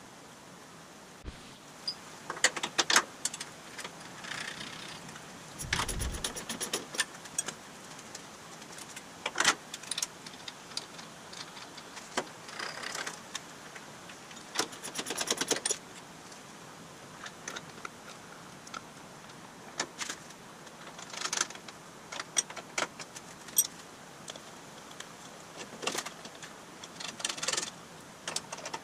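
Hand-tool work on metal parts: scattered clinks, clicks and rattles, with two short runs of rapid, evenly spaced clicking about six and fifteen seconds in, and a dull thump about six seconds in.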